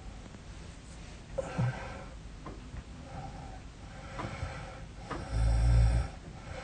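A woman snoring in her sleep: soft breaths, then one loud, low snore about five seconds in. She suspects the snoring is a sign of sleep apnea.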